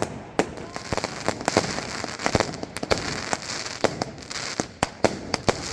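Fireworks going off all around: many sharp bangs and firecracker cracks at irregular intervals over a constant crackle.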